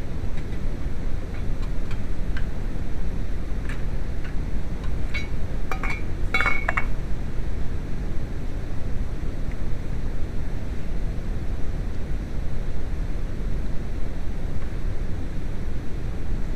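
A few short metal clinks with a brief ring, between about four and seven seconds in, over a steady low rumble.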